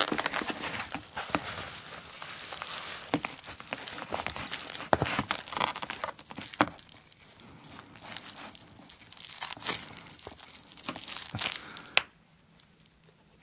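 Gloved hands mixing and kneading tuna-mayo rice with crumbled seaweed flakes in a thin plastic tray: crinkling and crackling with scattered sharp clicks, stopping near the end as a rice ball is lifted out.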